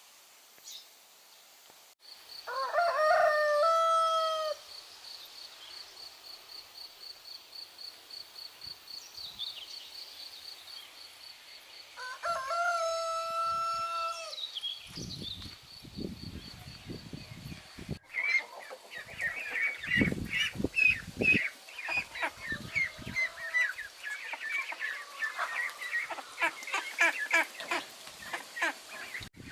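A rooster crows twice, about ten seconds apart, over an insect's steady pulsing high trill. After a cut, poultry cluck in a rapid, busy run of short calls.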